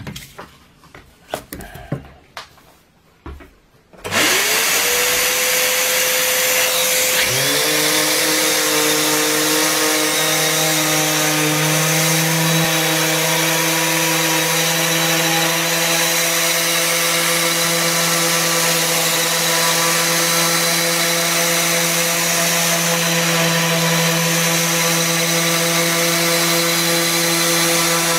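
A few faint handling clicks, then an electric random orbital sander starts about four seconds in. Its whine rises quickly and it runs steadily, sanding a pine board with a coarse 40-grit hook-and-loop disc. About three seconds later a lower hum joins the whine and the tool runs on unchanged.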